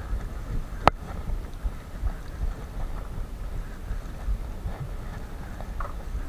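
Wind buffeting the microphone as a low rumble, with a single sharp click about a second in.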